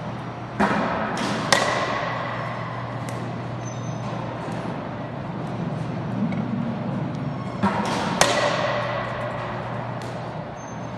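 A bat hitting pitching-machine baseballs in a batting cage: two pitches, one near the start and one about two-thirds through. Each is a pair of sharp knocks under a second apart, and the second knock of each pair rings briefly.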